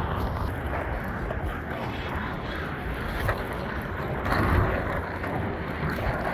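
Aggressive inline skate wheels, new 64 mm wheels on a Ground Control Mega frame, rolling over asphalt and concrete in a steady rumble, with wind buffeting the microphone. The rumble swells briefly about four seconds in.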